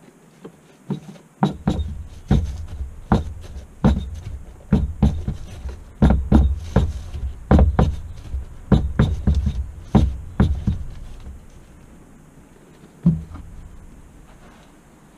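A 29er mountain bike wheel with a new Schwalbe Tacky Chan tubeless tyre being worked on a wooden workbench to seat the tyre beads on the rim. It makes many irregular thuds and knocks, one or two a second, for about ten seconds, then a single last knock near the end.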